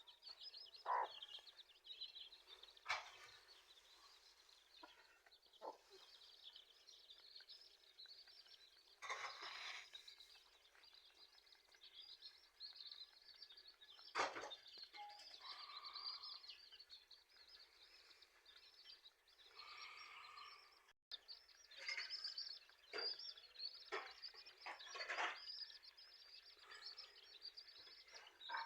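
Chicks peeping continuously in a dense, high-pitched chorus, with now and then a short click or knock.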